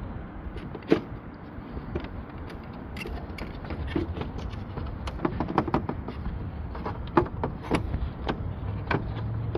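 Clicks, knocks and scraping from a car tail light housing being worked and jiggled loose from the body. One sharp knock comes about a second in, and a quick run of clicks follows later on.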